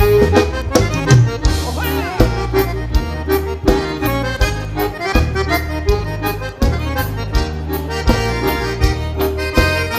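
Accordion-led southern Brazilian dance-band music: an instrumental passage with accordion melody over bass and a steady, even dance beat.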